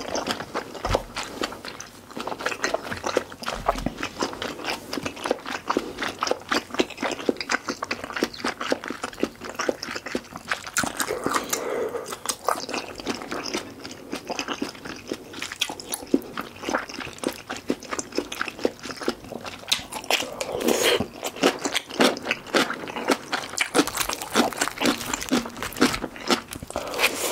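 A person chewing mouthfuls of mala tang noodles and toppings close to the microphones: a dense, irregular run of small wet clicks and smacks.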